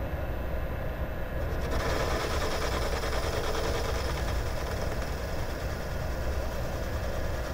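Taig micro lathe running, its belt-driven electric motor and spindle humming steadily. About two seconds in a steady hiss joins as the tool bit takes a turning cut in the metal bar stock under power feed.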